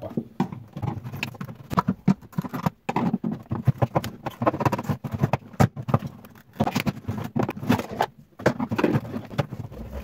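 Plastic rear cover panel of a no-frost refrigerator's freezer being worked loose and pulled out: many irregular clicks, knocks and rattles of hard plastic.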